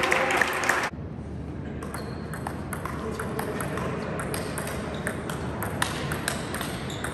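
Table tennis rally: the ball clicking sharply off the bats and the table in quick irregular succession, after a short stretch of voices in the first second.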